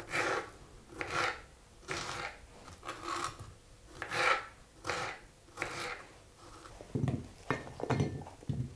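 Small kitchen knife cutting strawberries into pieces on a cutting board: a steady run of short slicing strokes, about three every two seconds. About seven seconds in, lower knocks and clatter as the cut pieces are tipped off the board into a glass dish.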